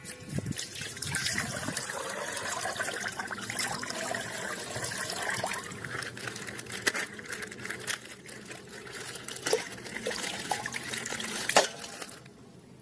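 Plastic toy packaging being handled and opened: continuous crinkling and rustling with scattered sharp clicks, the loudest click near the end.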